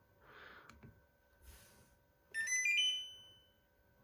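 Electronic chime from a Samsung air conditioner's indoor unit: a short tune of a few beeps stepping up in pitch, about two seconds in, ringing briefly as it acknowledges a setting change sent from the thermostat.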